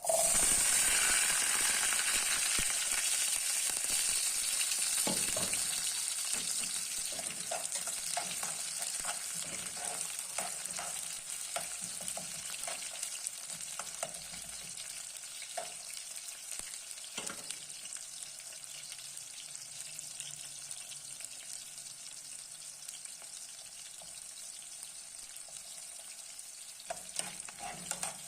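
Food frying in hot oil in a pan: a loud sizzle starts suddenly and slowly dies down to a steadier hiss, with scattered light clicks of a utensil stirring.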